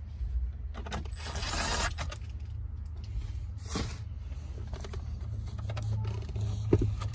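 Cordless drill/driver whirring briefly about a second in, with scattered clicks of parts being handled, over a low steady hum.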